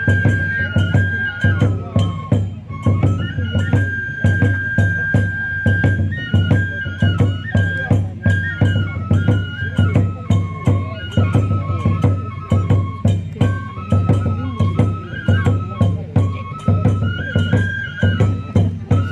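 Onikenbai dance accompaniment: a Japanese bamboo transverse flute plays a stepping, held-note melody over a steady, even beat of taiko drum and small hand cymbals.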